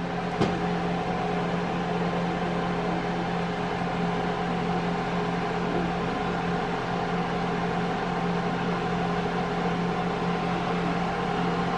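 Steady machine hum with a faint whir, like an appliance motor or fan running, with one light knock about half a second in.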